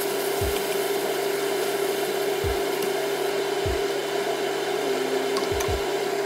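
Minced meat sizzling in a hot frying pan while being stirred and turned with a wooden spatula, over a steady low hum.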